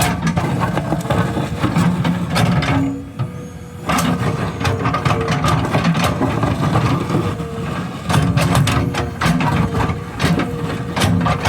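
JCB 3DX backhoe loader's diesel engine running under working load, its pitch rising and easing, with repeated sharp metallic clanks. The sound drops briefly about three seconds in, then picks up again.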